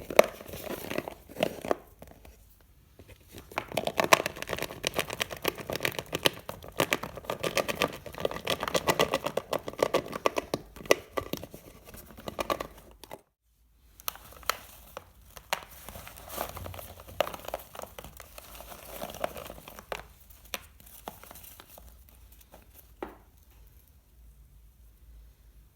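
Candies being handled and mixed: dense crinkling and clicking, breaking off for a moment about 13 seconds in, then thinning out to a few scattered clicks near the end.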